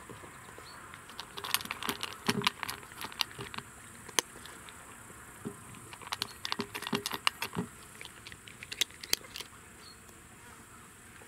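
A cat eating from a metal bowl: bursts of quick, sharp clicking chewing sounds, with short pauses between them, ending about two seconds before the close.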